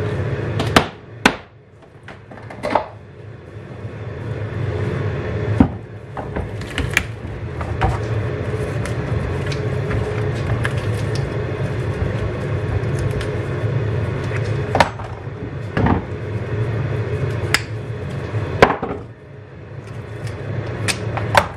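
Sharp knocks and clunks at uneven intervals, about ten in all, as a deer head is levered against a homemade U-bolt jig on a wooden workbench to pry the lower jaw open, over a steady low hum.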